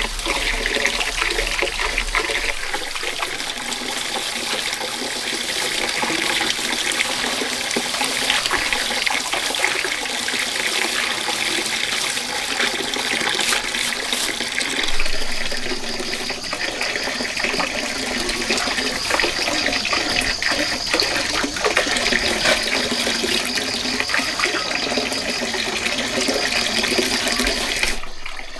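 Steady rush of running water, with light rustling and patting as sticky rice is worked by gloved hands in a plastic basin.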